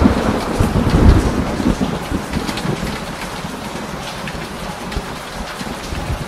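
Heavy rain with a rumble of thunder that dies away over the first two seconds or so, leaving steady rain and dripping water.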